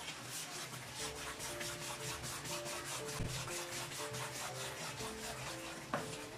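Wooden spatula stirring and scraping a thick barfi mixture of mashed sweet potato and milk around a coated frying pan, in quick rhythmic strokes of about four or five a second. Soft background music plays underneath.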